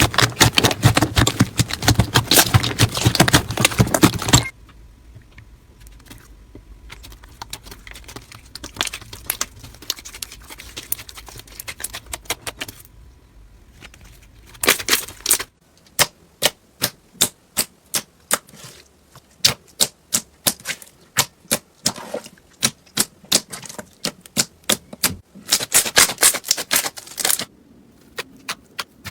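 Slime being squeezed, pressed and poked, giving crackles and sharp pops. Dense, loud crackling for the first few seconds gives way to fainter scattered clicks. Later come regular pops about twice a second, then another short spell of dense crackling near the end.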